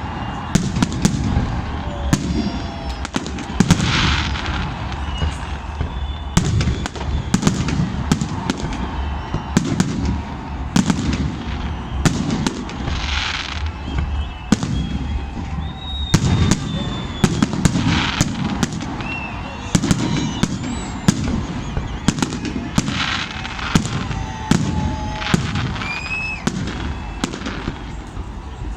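Fireworks going off in quick succession: many sharp bangs and crackles, with a few short whistles, over the constant chatter of a crowd.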